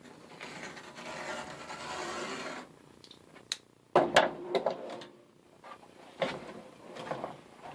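Knife drawn through a thick drawer liner in one long scraping cut lasting a couple of seconds, then several sharp knocks and rubbing as the trimmed liner is handled and laid into a tool box drawer.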